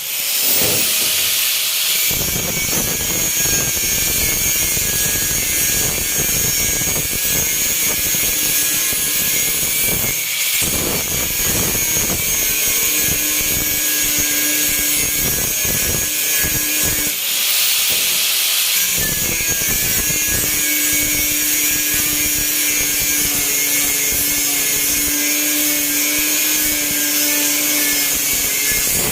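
Continuous power-tool noise from car body metalwork, a dense crackle with a faint steady tone that comes and goes, and brief hissier stretches about ten and eighteen seconds in.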